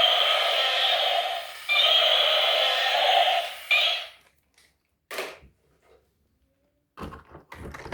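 Tinny electronic sound from a small toy speaker, repeating in phrases of about two seconds and stopping about four seconds in, followed by a few light plastic clicks and knocks near the end.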